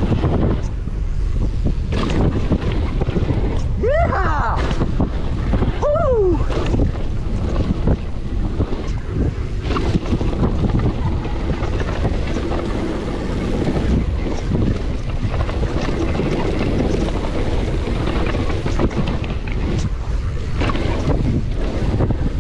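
Wind rushing over a chest-mounted camera's microphone while a downhill mountain bike rolls fast over a rough dirt trail, tyres crunching on gravel with frequent knocks and rattles from the bike. Two brief squeals falling in pitch, about four and six seconds in.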